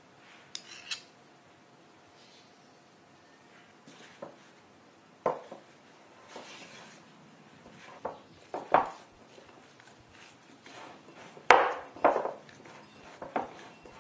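Bread dough being mixed and squeezed by hand in a glass mixing bowl: scattered knocks and clinks of the glass bowl, some spaced a second or more apart and some in quick pairs, the loudest about eleven and a half seconds in.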